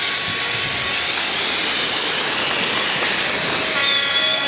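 Steady rushing of river water churned up by a side-launched ship's hull as it surges past and its wave washes along the bank. Near the end, steady horn tones start sounding.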